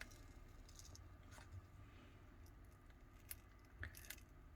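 Near silence with a few faint clicks and scrapes: a pick tool being worked along the edge of a Samsung Galaxy Note 9's glued glass back cover to pry it off.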